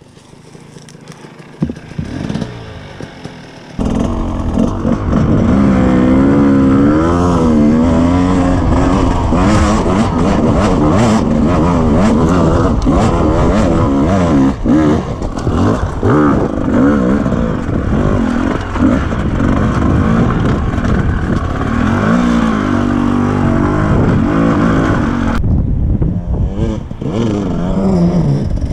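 Two-stroke dirt bike engine, quiet for the first few seconds, then pulling away about four seconds in and running loud, its revs rising and falling constantly with the throttle.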